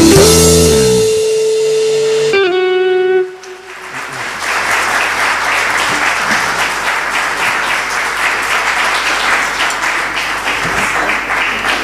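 A band's final chord on electric and acoustic guitars and drums rings out and dies away over about three seconds, ending the song. Then the audience applauds steadily for the rest of the time.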